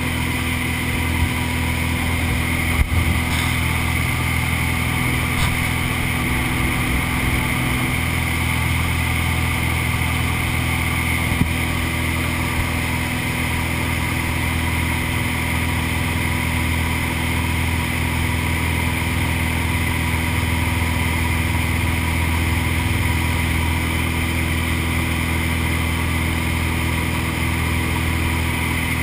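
Piston engine and propeller of a small aircraft droning steadily in flight, heard inside the cabin, with a couple of brief knocks.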